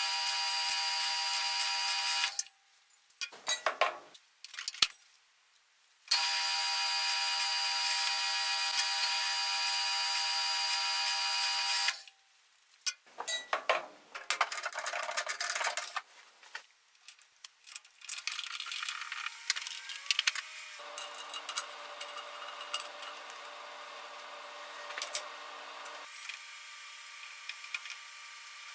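Drill press running at a steady pitch while drilling small holes in a titanium handle slab: about two seconds, then a break with a few clicks and knocks, then about six seconds more. After more knocks and handling, a different, quieter steady machine hum fills the rest.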